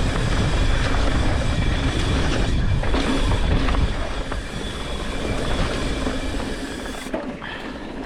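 Mountain bike descending a rough dirt trail, heard from a rider-worn GoPro: tyres rolling over dirt and the bike rattling, with scattered knocks over bumps, wind rushing over the microphone, and a thin steady high squeal. It eases off a little about seven seconds in.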